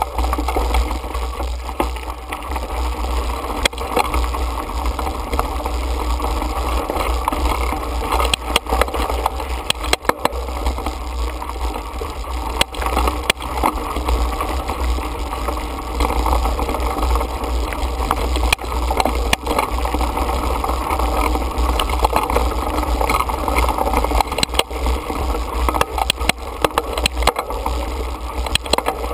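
Mountain bike ridden over a rocky dirt singletrack, heard from a camera mounted on the bike: a steady low rumble with frequent sharp clicks and rattles as the tyres run over stones and the bike jolts.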